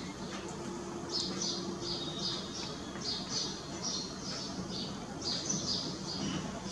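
Indian silverbills giving a quick string of short, high chirping calls, about three or four notes a second from about a second in, over a faint steady low hum.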